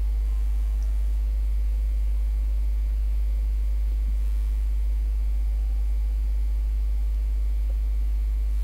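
Steady low electrical mains hum with a stack of fainter steady tones above it; nothing else stands out.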